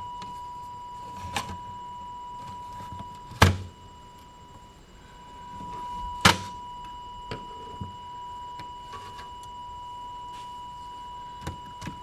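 A steady test tone of about 1 kHz from a Midland 13-862B CB radio's audio, which seems quieter than it should be. It fades out about four seconds in and comes back by about six seconds. A few sharp clicks and knocks cross it, the loudest about three and a half and six seconds in.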